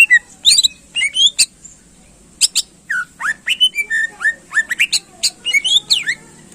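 Green leafbird (cucak ijo) singing in full voice: a rapid string of loud, sharp whistled notes sliding up and down in pitch. There is a short break about two seconds in, and the song stops about six seconds in.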